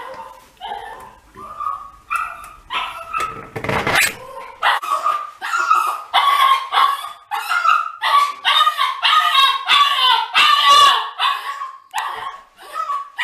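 Black mame shiba (miniature Shiba Inu) crying and yelping loudly over and over while being bathed, its cries coming about twice a second in a bathroom, a sign that it hates the bath. A short rush of noise comes about four seconds in.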